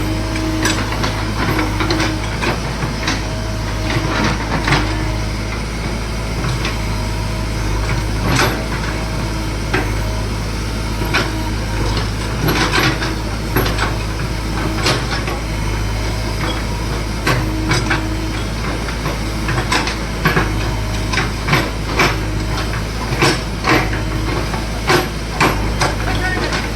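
JCB digger's diesel engine running steadily, with irregular knocks and clanks on top that come more often in the last several seconds.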